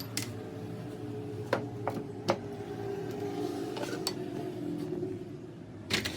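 Metal parts and tools clinking in a few separate sharp knocks over a steady low machine hum.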